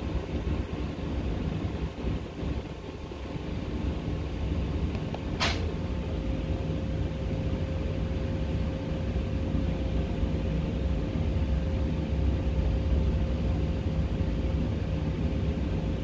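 Steady low machine hum and rumble, with one sharp click about five seconds in, after which a steady humming tone carries on.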